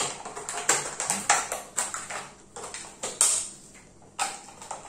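Scissors cutting into a thin plastic water bottle: a series of irregular snips and crackles of the plastic as the holes are enlarged.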